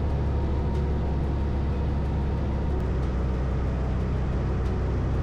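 1964 Mooney M20E's four-cylinder Lycoming engine and propeller running steadily at reduced power on final approach, a constant drone inside the cockpit.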